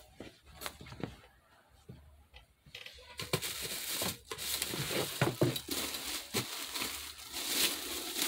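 A few light rustles and taps, then from about three seconds in, continuous crinkling of the plastic bag wrapped around a portable steam sauna's steam machine as it is handled and lifted out of its cardboard box.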